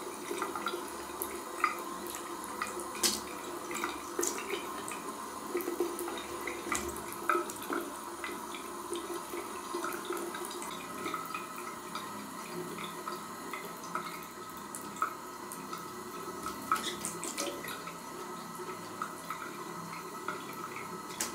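Bidet tap running a thin stream of water into the ceramic bowl, splashing steadily, with scattered small splashes and clicks.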